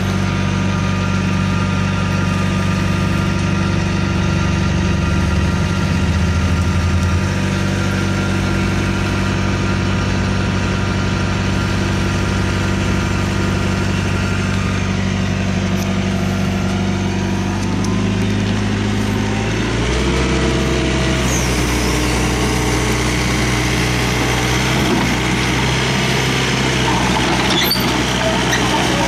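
Hyundai Robex R55-7 mini excavator's diesel engine running steadily. Its note drops to a lower, steady pitch about eighteen to twenty seconds in.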